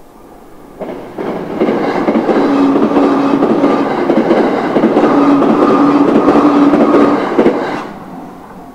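E353 series electric limited express train passing close by on the Chuo Main Line, a rush of wheel-and-rail noise with a steady hum that builds about a second in, stays loud for some six seconds, and dies away near the end.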